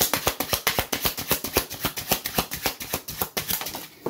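A deck of tarot cards being shuffled in the hand: a rapid, even patter of card flicks, about ten a second, that stops just before the end.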